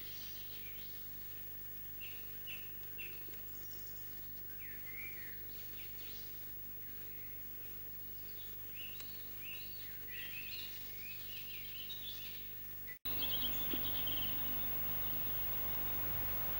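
Small birds singing and chirping in a run of short notes over a steady low hum. About thirteen seconds in the sound cuts out for an instant and gives way to a louder, hissier outdoor background with a brief burst of chirps.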